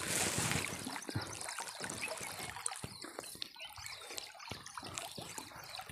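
Water splashing and trickling, with irregular small splashes and drips, a little louder in the first second.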